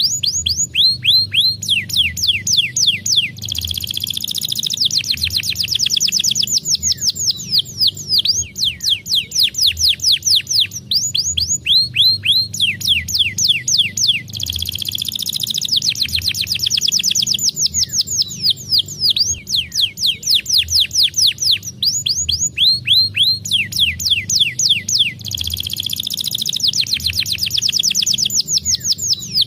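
Domestic canary singing: rapid falling whistled notes and fast rolling trills, the same run of phrases coming round again about every eleven seconds.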